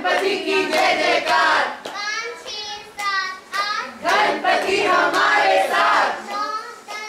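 A young girl's voice singing in short phrases, the pitch sliding and wavering within each phrase.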